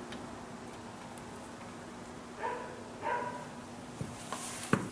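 Fuel return line and fittings handled over the engine: a few light clicks and a sharp knock near the end, the loudest sound, over a steady hum. About halfway through come two short whines, a little under a second apart.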